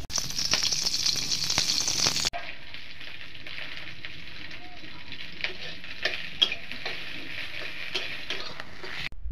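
Food frying in hot oil in a wok, a steady sizzle, louder for about the first two seconds and quieter after that. A few sharp clicks of a metal spatula against the wok come in the second half as the food is stirred.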